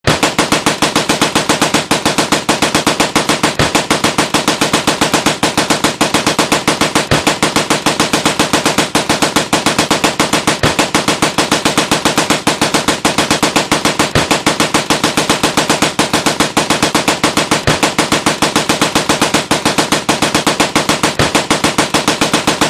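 Sustained automatic machine-gun fire: a rapid, even stream of shots that starts suddenly and keeps going without a break, with a louder crack about every three and a half seconds.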